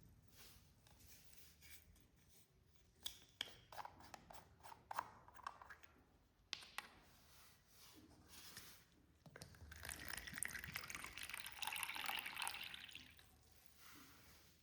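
Soft clicks and taps, then cola poured in a stream for about three seconds, starting a little past halfway.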